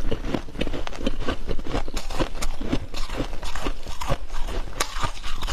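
Close-up crunching and chewing of freezer frost: a quick, irregular run of crisp crunches, several a second.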